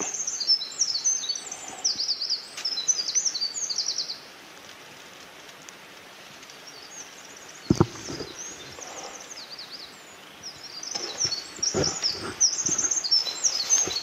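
Small songbirds singing in rapid, high chirping phrases, which stop about four seconds in and start again from about ten seconds in. A single short knock sounds about eight seconds in.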